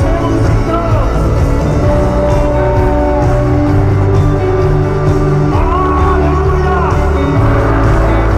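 Live Christian worship music from a band on stage with a singer, played loud through a stadium PA and heard from within the crowd.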